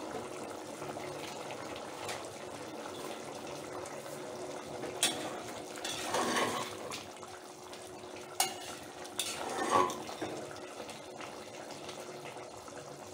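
A spatula stirring thick mutton curry in a metal pressure cooker, scraping along the pot and knocking against its side. There are two sharp taps and two longer scrapes in the middle, over a low steady simmer.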